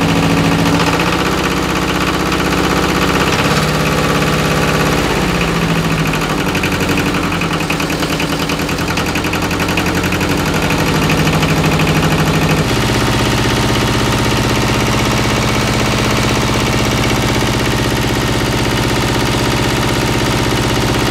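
Freshly rebuilt Yanmar 2TR20-A two-cylinder diesel in a YM2000B tractor running on new pistons, rings and sleeves. Its pitch shifts up and down for the first dozen seconds, then holds steady.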